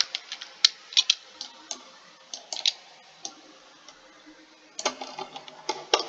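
Irregular clicks of a computer mouse and keyboard, sharp and unevenly spaced, coming thicker near the end.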